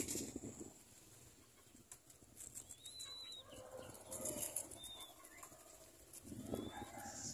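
Young puter doves feeding on millet in a plastic bag: faint scattered pecking clicks and plastic rustle, with a few short high bird chirps about three and five seconds in.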